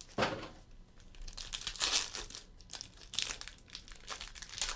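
Trading card pack being torn open by hand, its wrapper crinkling and rustling in irregular scratchy bursts as the cards are pulled out.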